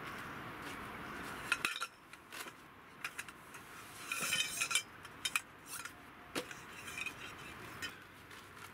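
Sectioned metal tarp poles clinking and knocking against each other as they are drawn out of their storage bag and laid down, in a scattered run of sharp clinks that bunch up about four seconds in.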